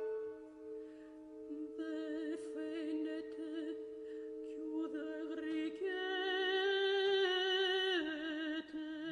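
Soprano singing a soft, slow phrase with wide vibrato over quiet held orchestral notes; her line climbs to a louder held note a little past the middle and falls back near the end.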